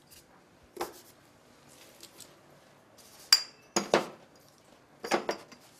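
Camera-gimbal parts (tubes and frame pieces) being picked up and set down on a tabletop: about six separate knocks and clinks, the sharpest one a little past halfway with a brief ring.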